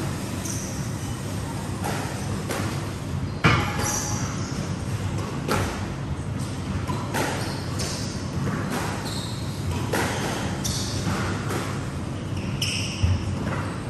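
Squash ball knocks and short high squeaks of court shoes on the wooden floor of a squash court, scattered and irregular, over a steady low hum. The loudest knock comes about three and a half seconds in, another near the end.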